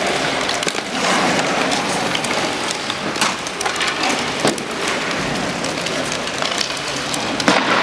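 Sledge hockey on an ice rink: a steady hiss of play with frequent sharp clicks and taps of sticks and puck on the ice, and one louder knock near the end.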